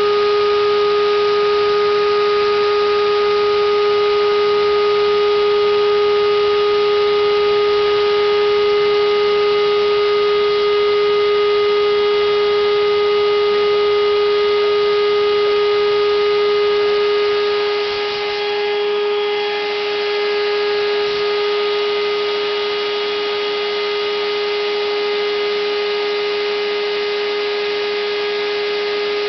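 Home-made CNC router running: a steady, high whine with many overtones, its level dipping briefly about 18 seconds in.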